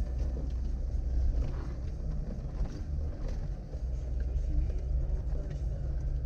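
Suzuki Vitara 1.6 EFI driving off-road: a low, uneven rumble from the engine and drivetrain, with scattered knocks and rattles from the body and suspension over rough ground.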